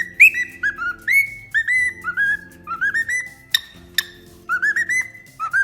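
A parrot whistling a run of short notes, each sliding up and then holding, in quick groups, over background music. Two sharp clicks come a little past the middle.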